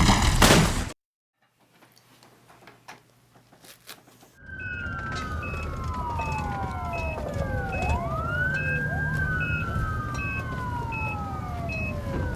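A loud dense rumble cuts off abruptly about a second in, followed by a few seconds of near silence. Then several emergency sirens wail over each other, each sliding down and back up in pitch, with a short high beep repeating a little more than once a second and a low hum beneath.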